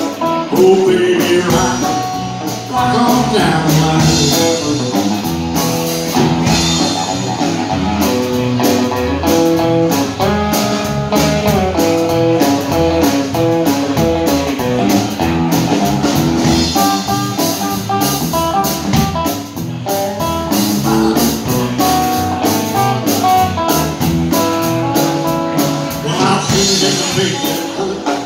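Live blues band of electric guitars and a drum kit playing a song, with picked guitar notes over a steady drum beat and cymbals.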